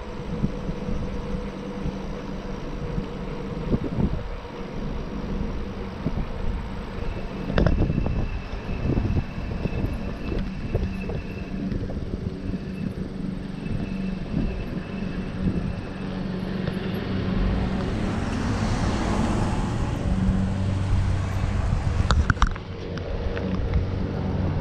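Wind rushing over the microphone and a low rumble from riding an e-bike on an asphalt trail, with a steady low hum underneath. A stronger hiss swells for a few seconds near the end.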